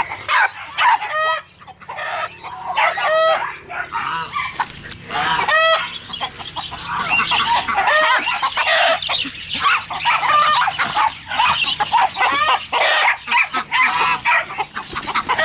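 A flock of chickens clucking and squawking, many calls overlapping without a break, with a few louder drawn-out squawks in the first six seconds.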